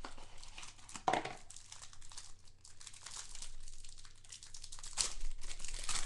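Plastic trading card pack wrapper crinkling as it is torn open and a card is pulled out by hand: a run of fine crackles, louder about a second in and again near the end.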